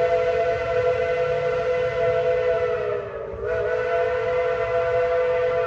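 Steam locomotive whistle blowing a long blast, a chord of several steady tones. About three seconds in, it briefly sags in pitch and weakens, then sounds again at full strength.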